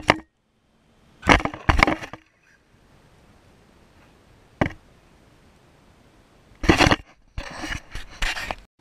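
Loud knocks and scrapes on an action camera's housing as the camera is jostled and handled: two bursts about a second in, a single sharp click midway, then a longer run of knocking near the end that cuts off suddenly.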